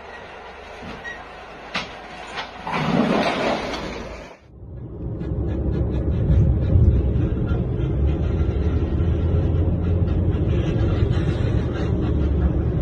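A short burst of rushing noise that cuts off suddenly, then a loud, steady low rumble with a grinding haze from an SUV driving on with metal dragging on the road, throwing sparks: typical of a car running on a bare wheel rim or dragging a part of its underbody.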